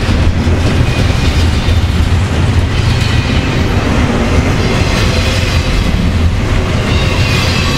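Double-stack intermodal well cars of a long freight train rolling past close by, their steel wheels making a steady, loud rumble on the rails.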